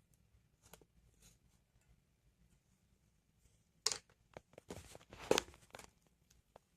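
Craft supplies handled by hand: a few faint clicks, then a sharp click about four seconds in, followed by a second or two of rustling and scraping.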